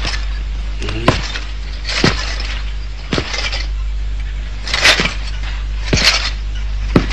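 A series of sharp cracks, about one every second, each trailed by a short hiss, over a steady low hum.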